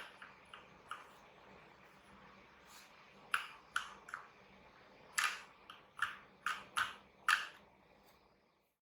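Keys of a Motospeed CK62 mechanical keyboard with linear red switches being pressed: about a dozen separate clacks, a few light ones at first, then louder ones in irregular groups over the next few seconds. The sound cuts off abruptly near the end.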